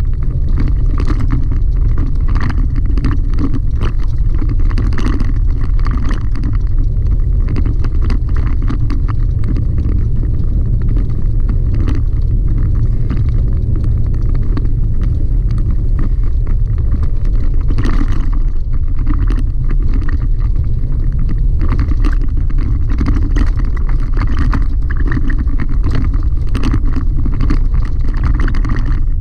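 Chevrolet Colorado ZR2 pickup driving on a gravel dirt road, heard from inside the cab: a steady low rumble with constant small crackles and rattles from the tyres on loose gravel.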